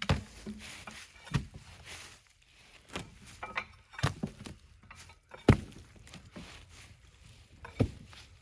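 Bark being peeled off a green log with a hand tool: irregular sharp knocks and scrapes, about seven in all, the loudest about five and a half seconds in. The dirty bark is being stripped so the dirt won't dull the chainsaw chain.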